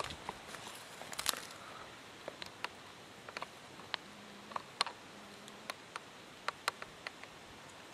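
Footsteps crunching on leaf litter and twigs about a second in, then scattered, irregular sharp ticks and light taps around the forest floor.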